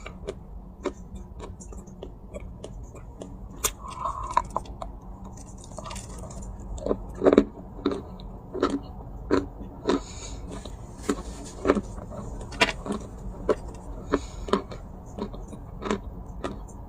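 Dry baked clay being bitten and chewed close to the microphone: sharp crunches, a few scattered at first, then coming about one or two a second.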